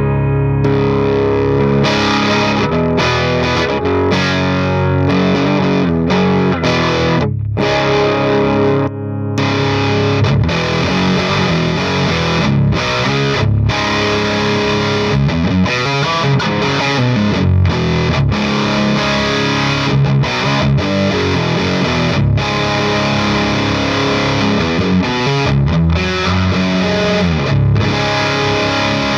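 Electric guitar played with heavy high-gain distortion through a GupTech Evil Donkey preamp pedal and an Orange Pedal Baby power amp: distorted riffs with short breaks between phrases, the clearest about seven and nine seconds in.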